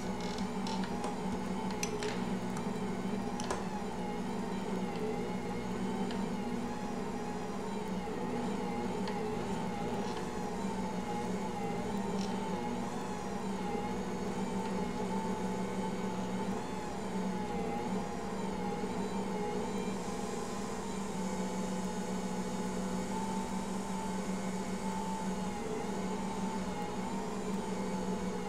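Ankarsrum stand mixer running steadily, turning its stainless bowl while the dough hook kneads a heavy bread dough: a steady motor hum that wavers slightly in pitch, with a few light clicks near the start.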